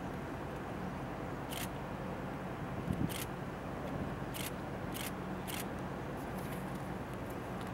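A ship's engine running with a steady low drone, with several short, sharp clicks over it and a low thump about three seconds in.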